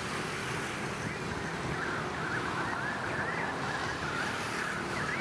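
Steady hum of busy city street traffic, with small birds chirping repeatedly over it from about a second in.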